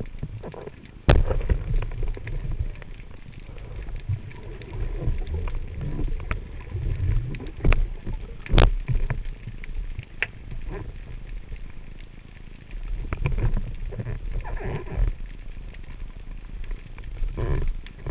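Underwater noise heard at the camera: a low rumble of moving water with many small clicks and knocks. Two sharp cracks stand out, about a second in and about eight and a half seconds in.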